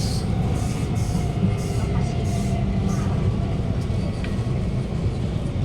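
Steady running noise inside the carriage of an Alstom Movia R151 metro train moving between stations: a constant low rumble of wheels on rail. A faint steady whine, likely from the traction motors, sits over it in the first half.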